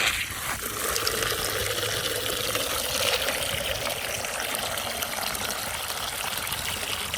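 Water gushing steadily into a chicken waterer as it is filled, the flow starting abruptly.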